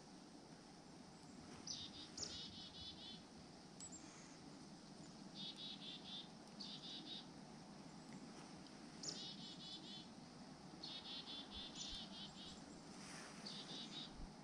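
Small songbirds calling repeatedly, faint: about eight short high calls, several in pairs, each a quick run of repeated notes, some opening with a brief falling note, over a steady low outdoor hiss.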